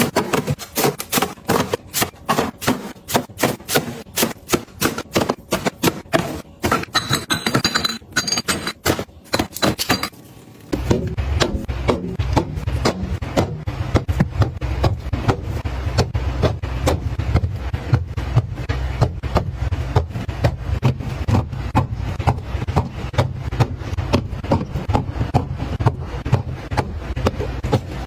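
A dense run of sharp taps, clacks and knocks of hard objects being handled and set down. About eleven seconds in, a steady low hum joins the taps.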